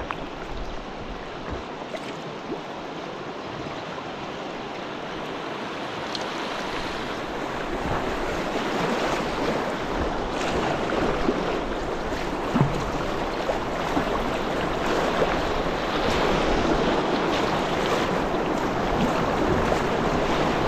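Rushing whitewater of a class 2 river rapid, a steady wash that grows gradually louder as the kayak closes in and runs down into it, with a few sharper splashes.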